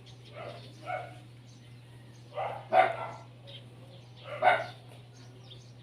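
A dog barking several times, the two loudest barks nearly two seconds apart in the middle.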